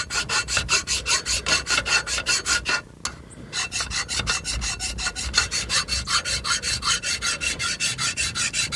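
Flat file worked quickly back and forth over a metal hydraulic pump part, about five short rasping strokes a second, with a brief pause about three seconds in. The file is dressing the face flat and taking out the puckering around a bolt hole.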